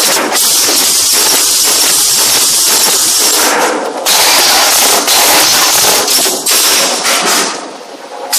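Automatic through-hole component insertion machine running: a loud, steady hiss with rattling clatter from the insertion head. It cuts out abruptly a few times and dips briefly near the end.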